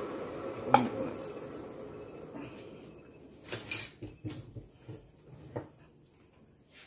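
Metal lathe turning a 4DR5 cylinder head on its faceplate and spinning down, its running noise fading steadily away. A sharp click comes about a second in, and a few light knocks and clanks follow around the middle.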